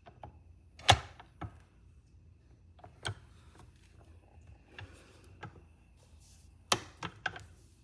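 Sharp clicks and taps of small pen-kit parts being handled and fitted together, the loudest about a second in and a quick run of clicks near the end.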